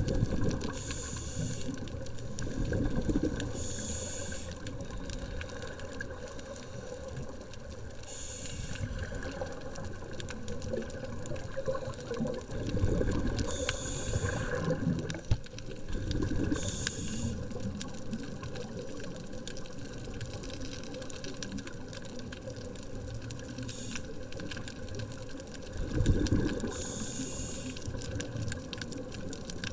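Scuba diver breathing through a regulator, heard underwater: short hissing inhales every few seconds, and a low bubbling rush as each breath is exhaled.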